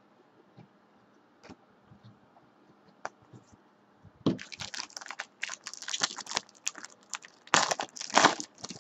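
Foil wrapper of a trading-card pack crinkling and tearing as hands rip it open: a dense run of crackles that starts about four seconds in, after a few faint clicks.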